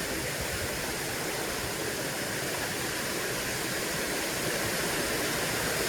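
Steady rush of water pouring over a spillway, an even noise with no breaks.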